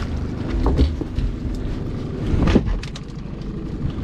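Boat engine running steadily at low revs, with a few knocks and rattles as an empty rope-bound crab pot is handled against the boat's side.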